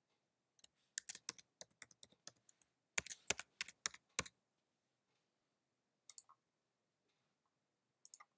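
Typing on a computer keyboard, a password being entered: two quick runs of keystrokes, then two single clicks a couple of seconds apart.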